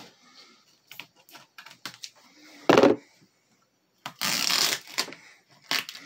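Duct tape being cut with scissors and stuck onto a wall: small snips and clicks, a dull knock about three seconds in, then a rasp of tape lasting over half a second about four seconds in.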